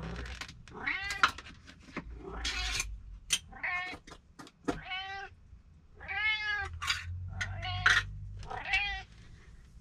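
Domestic cat meowing loudly and insistently, about eight meows in a row, each rising then falling in pitch: a hungry cat demanding her dinner at feeding time. A few short sharp clicks come in between the meows.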